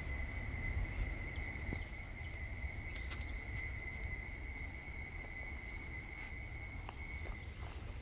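Trackside ambience after a train has gone: a steady low rumble under a single high, steady whine that stops shortly before the end, with a few short bird chirps between about one and two and a half seconds in.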